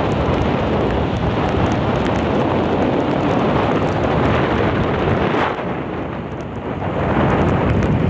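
Storm wind blowing hard across the microphone, a loud rumbling rush over the sound of surf and rain. The wind eases briefly a little past halfway, then picks up again.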